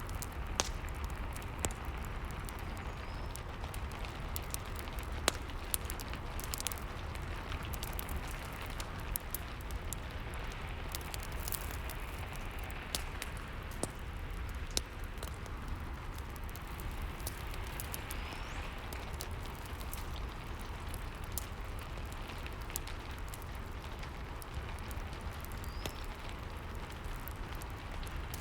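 Steady rain with a crackling wood fire: a constant hiss and low rumble, with many sharp pops scattered throughout.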